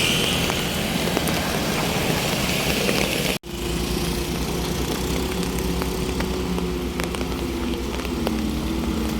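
Motor vehicle engine running with road noise. There is a brief break about a third of the way in; after it, an engine drone holds steady and then drops slightly in pitch near the end.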